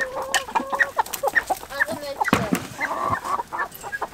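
Chickens clucking in quick, short calls, with a few longer drawn-out notes among them, the flock stirred up by a rooster chasing another bird.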